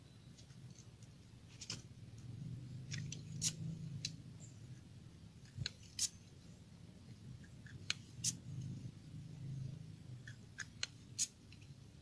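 Scattered sharp metallic clicks and taps from a Sharp Innova pump air rifle being handled close to the microphone, irregular and a second or two apart, with no shot fired.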